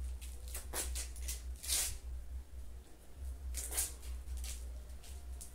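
Dry white cement powder scattered by hand over a wet mortar floor: a series of short, soft hissing swishes, with a steady low hum underneath. It is the dusting step that makes a burnished cement floor.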